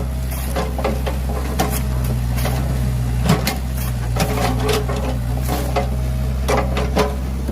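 Excavator engine running steadily with a low hum, while scattered knocks and clanks come from the bucket digging soil.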